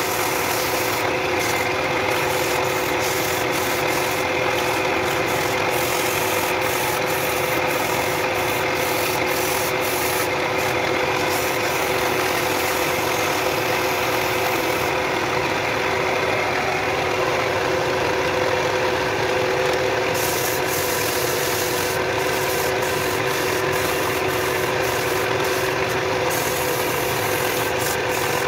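Wood lathe running steadily with a turned bench leg spinning, the leg being sanded by hand: a steady motor tone under the rubbing of sandpaper on the spinning wood.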